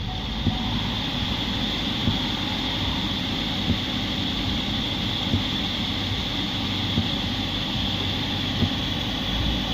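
Holden ZB Commodore's 2.0-litre turbo four-cylinder petrol engine (B20NFT) idling, with a steady high-pitched squeal and a sharp tick about every second and a half. The front is crash-damaged and a few pulleys are rubbing.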